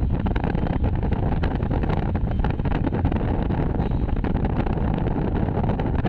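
Steady road and wind noise of a moving car, heard from inside the cabin, with wind buffeting the microphone in frequent short crackles.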